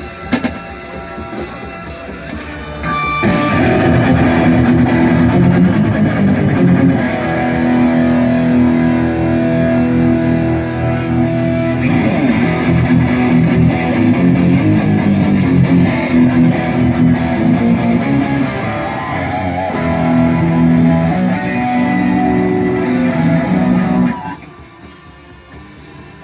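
Live band playing a loud passage led by electric guitar during a sound check; the full sound comes in about three seconds in and cuts off shortly before the end.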